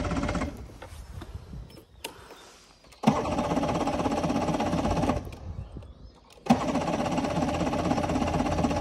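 V4 outboard engine being cranked by its electric starter in bursts of about two seconds, three times, without firing. This comes right after the fuel line has been primed following a stall from lack of gasoline.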